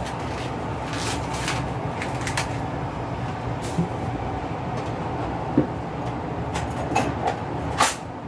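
Steady rush of running water with scattered knocks and clunks as a whole black chicken is handled and cleaned.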